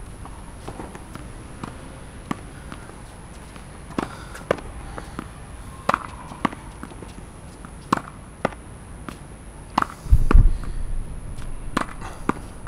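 Tennis ball being hit against a practice wall: sharp hits in pairs about half a second apart, repeating about every two seconds. A brief loud low rumble comes about ten seconds in.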